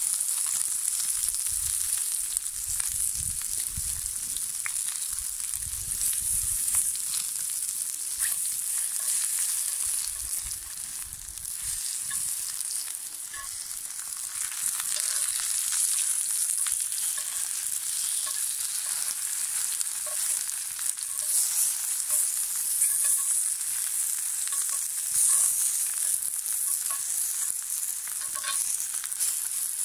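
Sausage and vegetable slices sizzling in a hot cast-iron skillet over campfire coals: a steady, high frying hiss with small ticks and pops.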